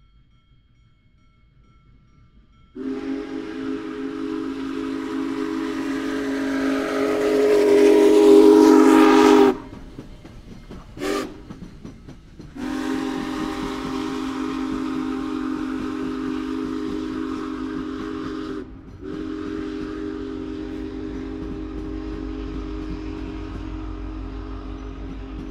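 Union Pacific Big Boy No. 4014's steam whistle blowing a chord as the locomotive approaches: one long blast that grows louder and cuts off sharply, a short toot, then two more long blasts. A low rumble of the oncoming train rises under the last blasts.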